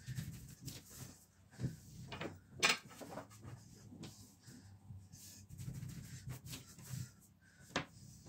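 Long, thin rolling pin (oklava) rolling a sheet of baklava dough across a table. A low rolling rumble comes and goes, broken by scattered sharp knocks and clicks as the pin shifts and is set down, the loudest about two and a half seconds in.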